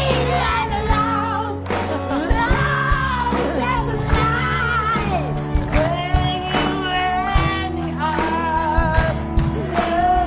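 A man belting a song at full voice, with long held notes and wide vibrato, over a live rock-style backing of bass and drums.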